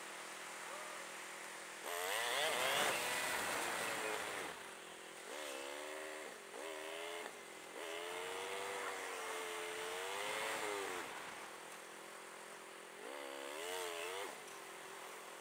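2009 Kawasaki ER-6n's parallel-twin engine revving as the bike accelerates in several pulls: a sharp rise about two seconds in, short bursts around five to seven seconds, a longer wavering pull from about eight to eleven seconds, and another rise near the end, with quieter running in between. Heard through a helmet camera.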